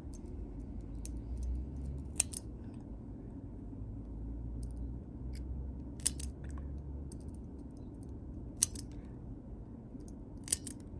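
Pet nail clippers snipping through a cat's claws: four sharp clips spread a few seconds apart, with a few fainter clicks between.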